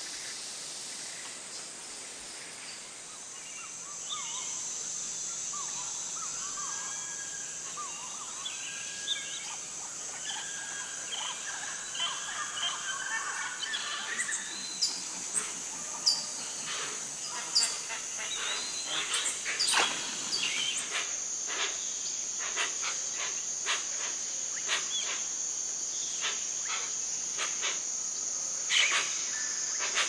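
Amazon rainforest ambience: a steady high-pitched insect drone throughout. Over it come bird calls in the first half, then a run of short, sharp calls or clicks in the second half.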